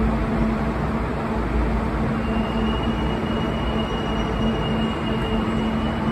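Kintetsu limited express train standing at the platform, its onboard equipment running with a steady hum and rumble. A thin high steady tone joins about two seconds in.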